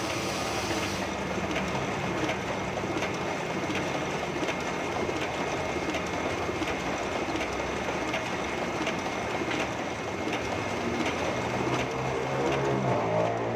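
Heidelberg GTO 52 sheet-fed offset printing press running steadily, its mechanism clattering with a sharp click about every 0.7 seconds as it feeds and prints each sheet.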